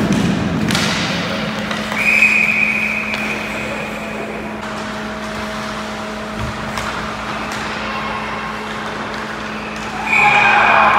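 Ice rink ambience with a steady low hum. A long, steady, high-pitched tone sounds about two seconds in for nearly three seconds, and again near the end, where it comes with a louder wash of noise.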